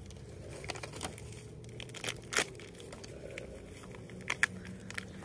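Plastic crinkling and rustling as food is handled in gloved hands, with a few sharp crackles, the loudest about two and a half seconds in, over a low steady hum.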